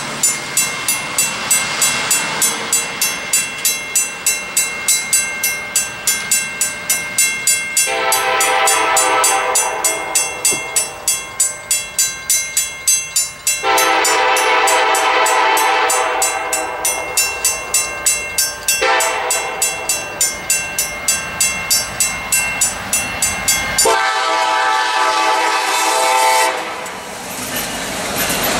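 Grade-crossing warning bells ring rapidly and evenly throughout. From about eight seconds in, the lead locomotive of an approaching freight train, a CN EMD SD70M-2, sounds its air horn in four blasts for the crossing, the last one shorter. Near the end the locomotives rush past the crossing.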